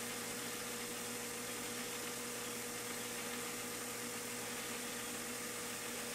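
Small metal lathe running steadily while a turning tool cuts a taper in tool-steel stock: an even motor hum with a constant hiss.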